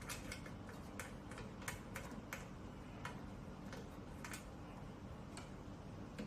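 Faint, irregular light clicks and taps, roughly two a second, from hands working at the fittings of an aluminium and tempered-glass PC case to open it up.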